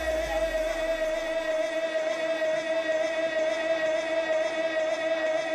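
Traditional Kun Khmer ringside music: a sralai reed pipe holding one long, slightly wavering note.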